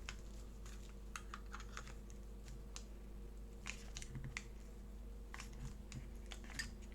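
Small irregular clicks and taps of a flat prying tool working under an iPhone 8's glued-in battery, over a faint steady low hum.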